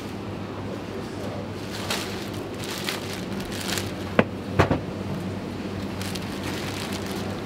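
Clear plastic bag crinkling as a butcher handles meat, with a few sharp knocks about four seconds in, over a steady low hum.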